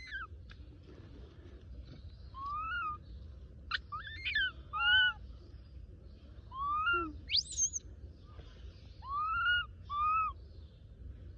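Infant macaque cooing: about eight short calls, each rising and then falling in pitch, spaced across a few seconds. There is one higher, sharper squeak in the middle.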